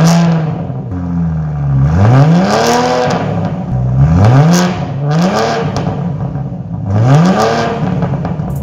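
BMW X5 xDrive40i's turbocharged inline-six revved through a Thunderbolt catback valvetronic exhaust. About four quick blips of the throttle, each rising sharply in pitch and falling back toward idle.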